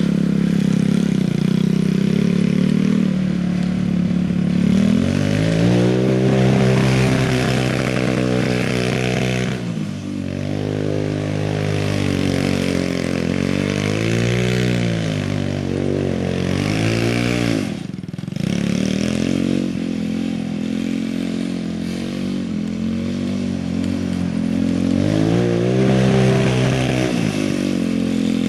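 Yerfdog Spiderbox buggy's transplanted Honda TRX200SX single-cylinder four-stroke engine, revving up and falling back again and again as the buggy is driven in tight turns on loose dirt. The sound briefly drops away once, about two-thirds of the way in.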